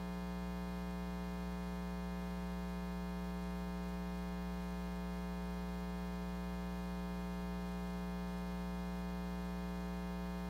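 Steady electrical mains hum with a buzzy edge, unchanging in pitch and level.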